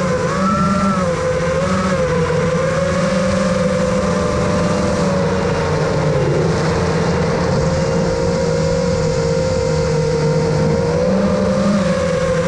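Six-inch FPV quadcopter's 2306 2700KV brushless motors and propellers whining, the pitch wavering up and down with throttle, heard from the drone's onboard camera.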